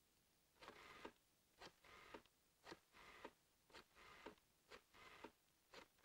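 Telephone being dialled, digit after digit: about six short whirring sounds, roughly one a second, each ending in a click.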